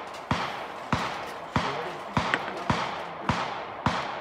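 Gunshots fired at a steady pace, about seven of them a little over half a second apart, each with a short echo trailing off.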